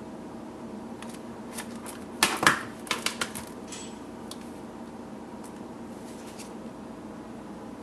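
Shrink-wrapped plastic CD jewel case being handled and turned over in the hand: a cluster of sharp plastic clicks and crinkles of the cellophane wrap, mostly between one and three and a half seconds in, loudest around two and a half seconds, over a steady low hum.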